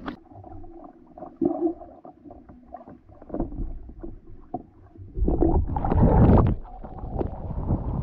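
Water slapping and knocking against a kayak's hull, with small clatters of gear. About five seconds in, a much louder rush of splashing water comes in as the kayak rolls over.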